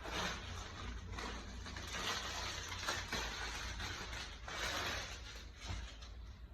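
Rustling of a parcel's packaging and cloth being handled and unwrapped, in irregular bursts, over a low steady hum.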